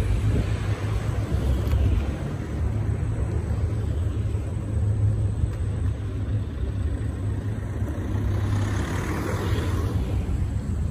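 Xiaomi Mi 1S electric scooter rolling over brick paving at speed: a steady low rumble of the wheels and wind on the microphone, with a swell of hiss about nine seconds in.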